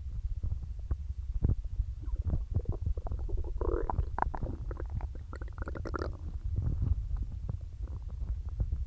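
Human stomach gurgling: a constant low rumble full of small pops and clicks, with higher, bubbly squealing gurgles twice around the middle, from a stomach filled with soda and swallowed air.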